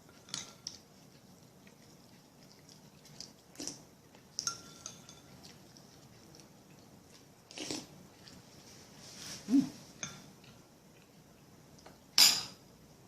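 Spoon or fork clinking and tapping against a dish now and then, one clink ringing briefly, with two louder knocks in the second half.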